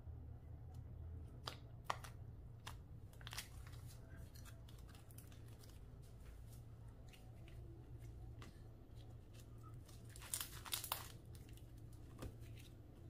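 Clear slime being worked by hand: scattered sticky clicks and crackles, with a quick flurry of them about ten seconds in, over a steady low hum.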